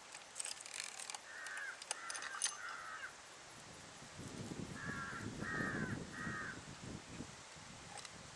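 A crow cawing, three harsh caws about a second in, then three more about five seconds in. Sharp clicks of a chainsaw's bar and chain being handled come with the first caws, and a low rumble sits under the second set.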